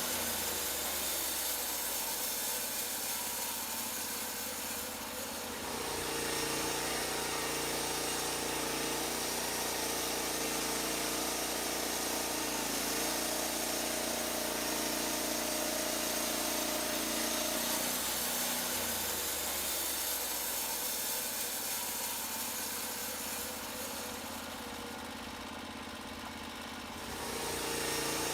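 Norwood LumberPro HD36 band sawmill's engine running steadily through a cut, its tone shifting several times with the load. It dips in level briefly about five seconds in and again near the end.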